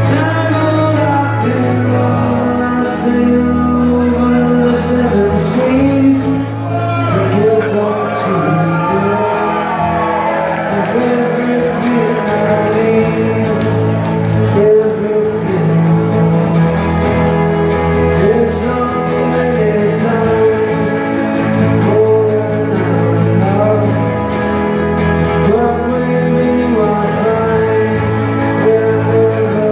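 Live acoustic band playing a song: strummed acoustic guitars and steady bass notes under male lead vocals.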